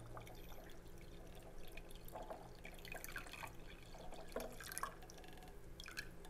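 Water poured faintly from a glass pitcher into a blender jar over soaked, peeled almonds.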